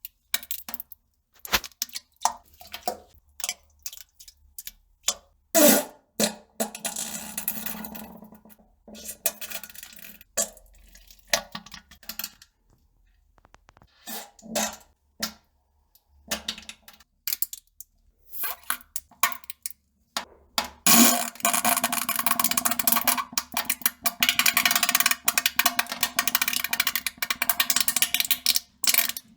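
Toilet sounds of someone defecating: scattered short plops and clicks, a noisy spell with a low buzz about six seconds in, and a long rough, hissing stretch with a low buzz from about twenty-one seconds on.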